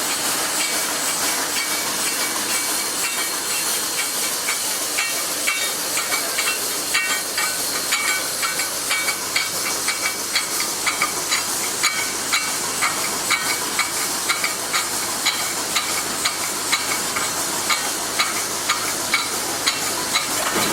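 Automatic wire mesh panel welding machine running: a steady hiss with a regular, rapid series of mechanical clicks and clanks from its welding cycle, which grow more distinct after about six seconds.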